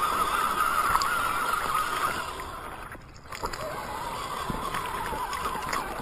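Axial SCX10 scale RC crawler's electric motor and gearbox whining, the pitch wavering with throttle and load, as its tyres slosh through shallow creek water. The sound briefly drops out about three seconds in and then resumes a little lower.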